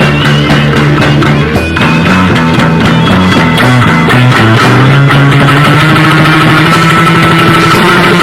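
A live rock band playing an improvised piece: electric guitar and bass over drums, loud and unpolished, with the bass line moving between held notes.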